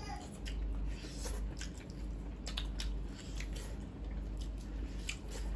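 Close-miked wet chewing and mouth smacks of people eating mutton curry with rice, as scattered soft clicks over a low hum.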